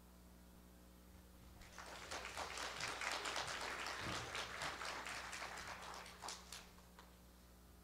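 Audience applauding: the clapping starts about two seconds in, swells, then thins out to a few last claps near the end.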